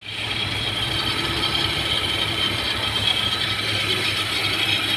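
Car engine idling with an uneven, pulsing rumble and a steady high-pitched whine above it. The owner puts the noise down to the fuel pump, and the engine is shaking at idle.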